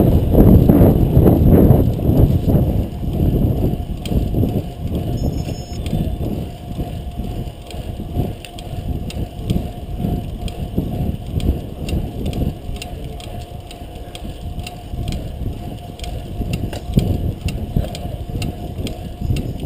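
Fixed-gear bicycle ridden at race speed: a low rumble of road and wind noise on the bike-mounted camera's microphone, with frequent rattling clicks. It is loudest for the first couple of seconds and then eases.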